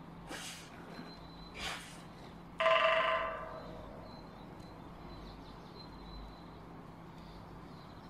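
A woodpecker drums a quick burst on the top of a hollow steel mast, and the metal rings out with a bell-like tone that fades over about a second.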